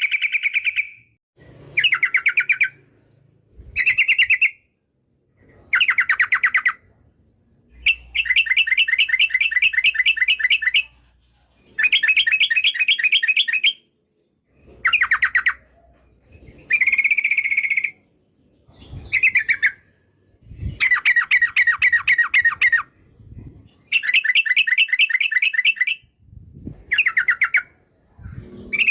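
A yellow-vented bulbul (trucukan) singing loud, fast chattering phrases, about a dozen of them with short pauses between. Each is a rapid run of repeated notes, some under a second and some about three seconds long.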